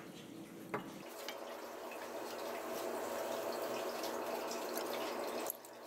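Dark soy sauce poured from a bottle in a thin steady stream into a metal ladle for about four and a half seconds, stopping abruptly. A short click comes just before the pour starts.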